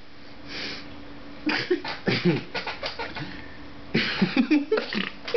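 Short scattered non-word voice sounds and mouth noises, with a breathy hiss about four seconds in. A faint steady hum sits under the quiet first second or so.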